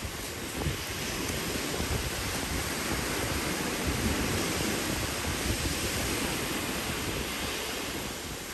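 Ocean surf washing in the shallows as a steady rush, with wind rumbling on the microphone.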